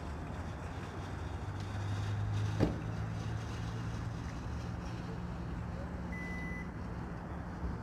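Steady low engine hum. A single knock comes about two and a half seconds in, and a short electronic beep sounds near the end.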